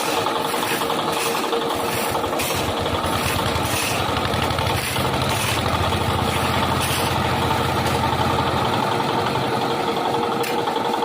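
Construction machinery engine running steadily with a constant whine. A deeper rumble swells for a few seconds in the middle, and faint clatters repeat through the first half.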